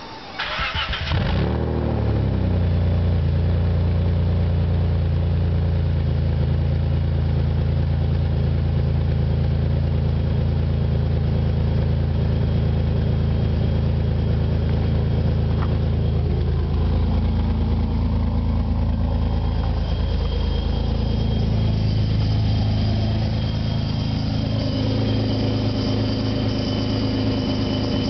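Supercharged 1997 Nissan Maxima V6 starting about a second in, then running steadily with the exhaust leaking after the catalytic converter. Past the middle the engine note steps down, and a thin high whine comes in and stays.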